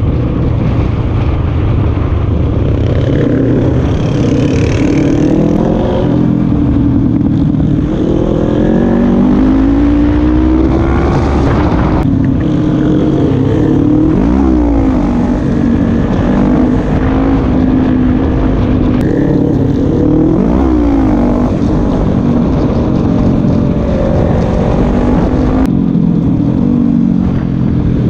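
Quad bike engine running under way at close range, its revs rising and falling as the rider accelerates and eases off, with a couple of quick dips and climbs in pitch.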